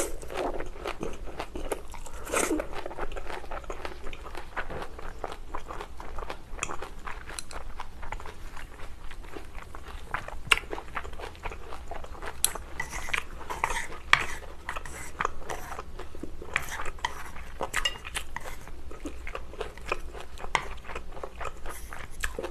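Close-miked eating of stir-fried glass noodles: a loud slurp as a mouthful is drawn in at the start, then steady wet chewing with many short crunches and mouth clicks.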